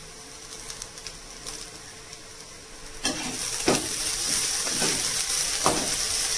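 Goat blood stir-fry sizzling in a nonstick kadai. It is quiet at first; about three seconds in, a metal slotted spatula starts stirring and scraping through it, and the sizzling gets louder with each stroke.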